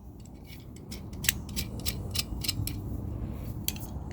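Steel locking pliers (Channellock curved jaw vise-grips) worked by hand: a run of small metallic clicks, several a second, starting about a second in.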